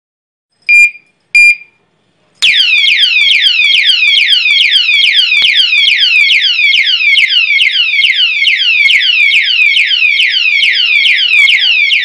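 Security alarm padlock's built-in siren. It gives two short, high beeps, then about a second later breaks into a loud wail of fast, repeating falling sweeps, about three a second. This is the tamper alarm that sounds when the lock is disturbed.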